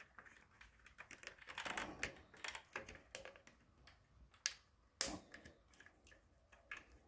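A soaped rubber washer being stretched and worked by hand onto a Caroma dual-flush valve's plastic seat: faint rubbing and soft irregular clicks, with a sharper click about five seconds in.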